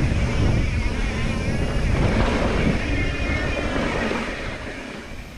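Wind buffeting the microphone over the rumble of mountain bike tyres rolling fast on a sandy dirt trail, easing off near the end.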